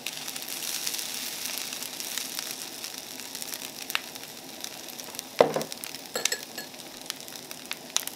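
Tomato-sauce fried rice with carrots and egg sizzling steadily in a frying pan on a portable gas burner, with scattered light clicks of chopsticks. About five seconds in there is one louder knock as a bowl and chopsticks are set down on the counter.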